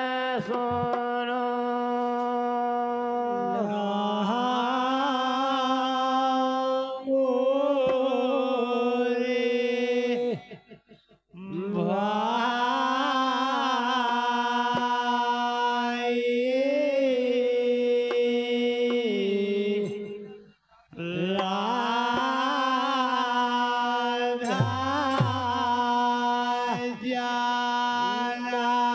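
Men singing a Hindi devotional bhajan into microphones, in long drawn-out phrases with wavering held notes. The singing breaks off briefly twice, about ten and twenty seconds in.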